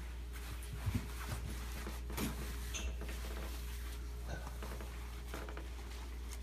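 Quiet handling sounds as a dog's red coat is pulled on: fabric rustling and a few light taps and knocks, two of them close together about a second in, over a faint steady hum.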